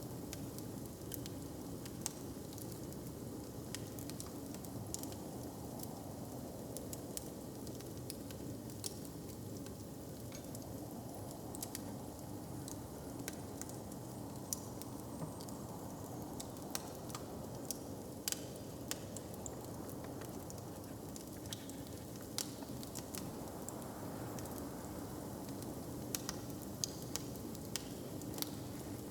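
Fire crackling: scattered sharp pops, a few bunched together near the end, over a steady low hiss and rumble.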